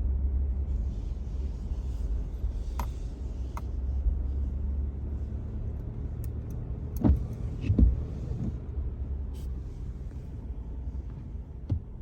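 Car engine idling as a steady low rumble, with a few knocks and clunks, two louder ones about seven and eight seconds in.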